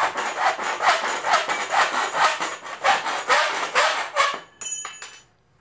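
Hacksaw cutting through an aluminum shower-door header rail, about three rasping back-and-forth strokes a second. The sawing stops about four seconds in, and a brief high metallic ring follows.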